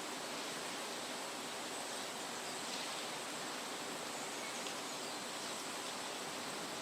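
Forest ambience: a steady, even hiss, with a faint high drone and a few faint short chirps.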